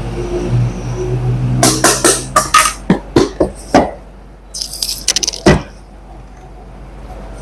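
A smartphone's retail box and packaging being handled: a run of sharp clicks and taps, a brief high rustling scrape, then a few more clicks. A low steady hum sits under the first two seconds.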